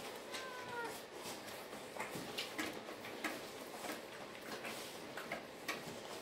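Springador (Labrador × springer spaniel) puppies nursing. One puppy gives a brief high whine that slides down in pitch just after the start, among many short wet clicks and smacks from suckling and scrabbling.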